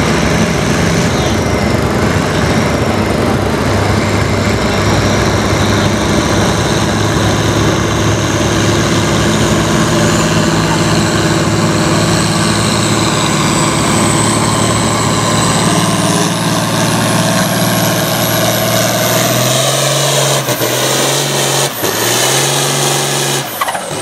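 International Harvester 1066 farm tractor's turbocharged six-cylinder diesel running hard under load while pulling a weight-transfer sled. A high whine rises in pitch over the second half, and near the end the engine note drops and wavers, with a few sharp knocks.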